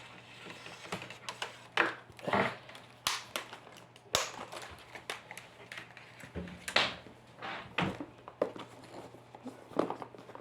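Irregular crinkles, scrapes and knocks of a keyboard's packaging being handled and opened, with a few louder crackles spread through.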